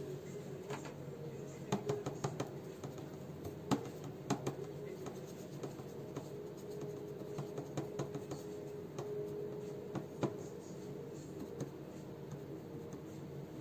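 Small paintbrush dabbing and scratching liquid antique powder into the carved recesses of a cast frame: irregular light taps and scrapes of the bristles and handle on the frame, over a steady low hum.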